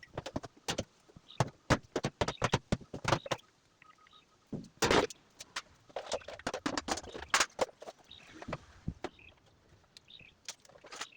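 Irregular clicks, knocks and rattles of hand tools and plastic and metal parts being handled as a Brastemp washing machine is taken apart, with a loud knock about five seconds in.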